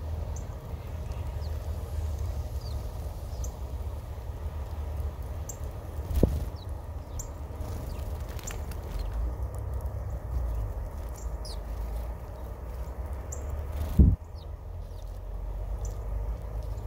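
Small birds chirping: short, high calls, each sliding down in pitch, repeated irregularly over a steady low rumble. Two sharp thumps stand out, about six seconds in and again near fourteen seconds, the second the loudest.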